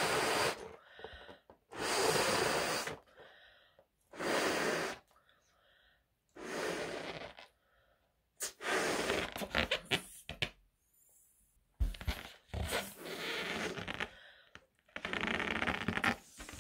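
A person blowing up a rubber balloon by mouth: about seven long breaths blown into it, each one to two seconds long, with short pauses between them to breathe in.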